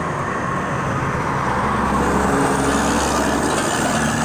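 Road traffic passing close by. In the second half a semi-truck with a multi-axle trailer comes past, and its engine and tyre noise grow louder.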